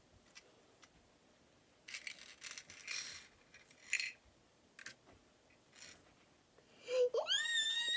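Sticky slime crackling and squishing in short bursts as small hands work it, with a few faint clicks. Near the end a toddler's long high-pitched squeal rises and holds, the loudest sound.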